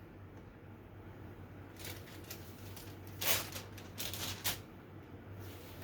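A transfer sheet being peeled off a freshly heat-pressed T-shirt: a few short paper rustles and crinkles, the loudest about three seconds in, over a faint steady low hum.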